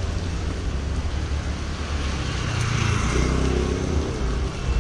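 Motor vehicle engines running close by, with cars passing on the road. A steady low rumble throughout, and an engine sound rising in pitch about three seconds in.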